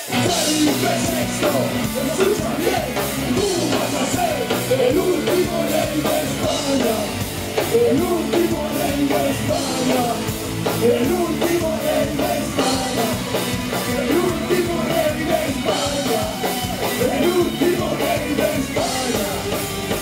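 Live rock band playing loud, with distorted electric guitars, drums and singing.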